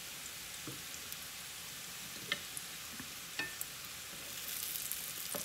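Burro banana fries sizzling in hot oil in a cast-iron skillet, with a few light clicks of metal tongs against the fries and pan. The sizzle grows louder about four and a half seconds in, as the tongs move the fries.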